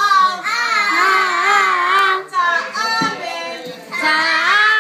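High voices singing long, wavering notes, dipping briefly in the middle and picking up again near the end.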